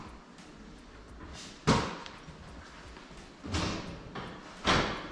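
Three separate thuds or bangs, a second or two apart; the first is the loudest.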